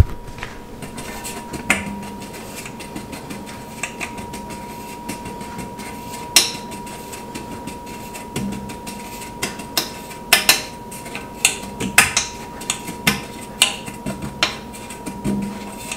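Thin metal fluted torte pan being tilted, turned and tapped in the hands to spread flour over it: a scattered series of light metallic clicks and taps, coming more often in the second half.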